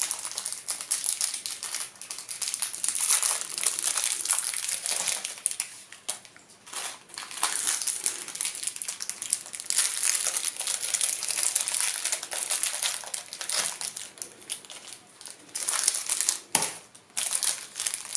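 Crinkly wrappers being twisted open and crumpled as Raffaello coconut sweets are unwrapped, an irregular crackling with a few short pauses.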